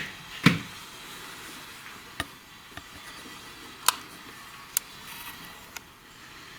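A few separate sharp metallic clicks and taps from hand tools and parts being handled on a workbench, spaced a second or two apart over a faint steady background.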